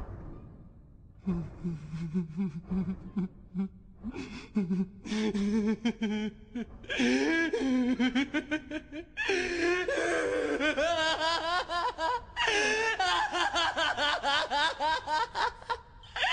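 A man laughing maniacally. It starts about a second in as low, broken chuckles, then builds into loud, high-pitched cackling from about seven seconds, with brief pauses for breath.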